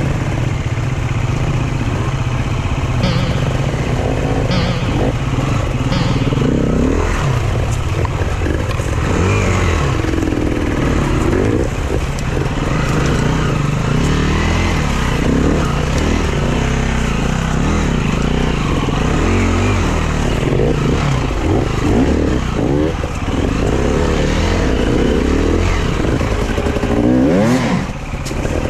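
Dirt bike engine revving up and down repeatedly as it is ridden off-road, the pitch rising and falling with the throttle, with a few short sharp clicks a few seconds in.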